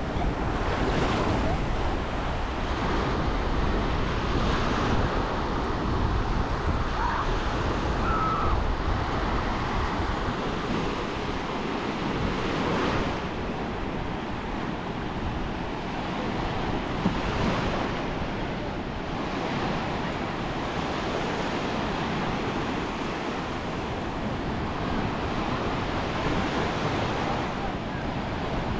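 Small surf breaking and washing up a sandy beach: a steady wash that swells every few seconds as waves come in. Wind buffets the microphone underneath.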